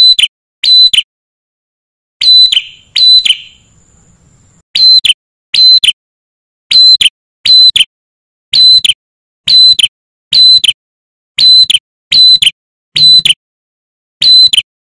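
Male ashy tailorbird singing: loud, shrill, high whistled notes, mostly in pairs, repeated about every second and a half, each note dropping slightly at its end.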